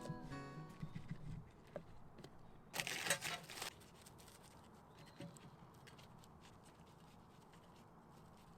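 Faint handling noises with a brief rustle about three seconds in and a few soft clicks, over a low steady hush.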